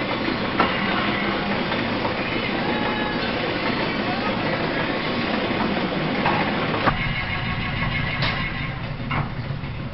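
Belt-driven Gray metal planer running, its reciprocating table carrying the work under the tool bit as it takes a light finishing pass that still curls a chip: a steady mechanical clatter with a few sharp knocks, one about half a second in and several near the end.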